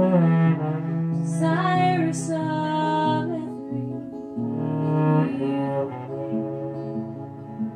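Bowed cello playing long, sustained low notes under a woman singing, with an acoustic guitar accompaniment.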